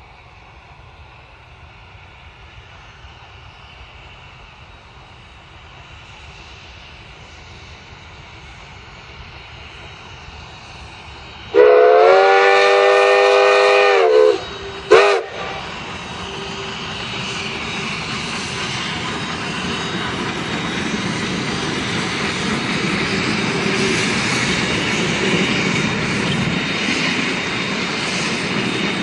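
A narrow-gauge K-36 steam locomotive sounds one long whistle blast about twelve seconds in, then a short toot. Its running sound grows steadily louder throughout, with wheel clatter on the rails.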